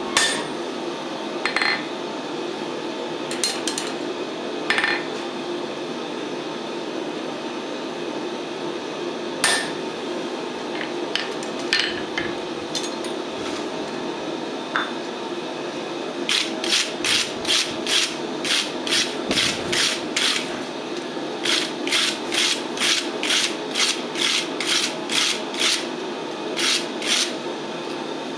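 Hot, freshly riveted blacksmith tongs being worked open and closed at the joint to free the hinge: rhythmic metal-on-metal scraping at about two to three strokes a second, in two runs in the second half. Earlier come a few separate sharp metal knocks on the rivet. A steady hum runs underneath.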